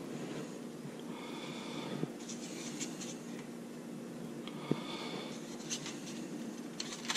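Faint handling of fried fish pieces being laid onto a sandwich roll on paper plates: soft scrapes and a few small taps, over a steady low room hum.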